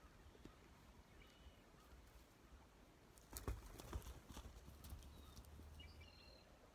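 A small horse's hooves striking snow-covered ground as she moves past close by: a quick run of dull hoofbeats about three and a half seconds in, otherwise faint.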